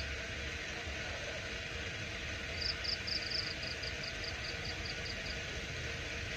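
Steady outdoor hiss with a low rumble underneath. About two and a half seconds in, a small bird gives a quick run of short, high chirps, about five a second, that fade away over a couple of seconds.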